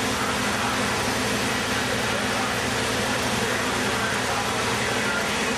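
Fire engines running steadily at the scene, a constant mechanical drone with a wash of hiss and no pauses.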